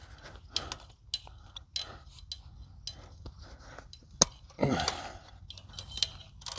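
Light metallic clicks and clinks of pliers and barbed wire being handled at a bar-type fence stretcher, with one sharper click about four seconds in followed by a brief rustling scrape.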